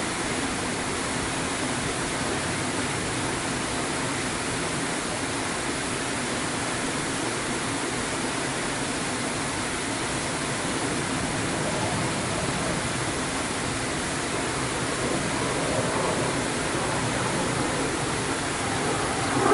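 Steady rushing of running water, an even hiss-like roar, with a slight swell of other sound in the last few seconds.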